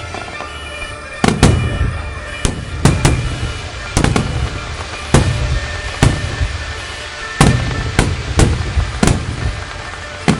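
Aerial firework shells bursting overhead: about a dozen sharp bangs at uneven intervals, some in quick pairs, each trailing off in a low rumble.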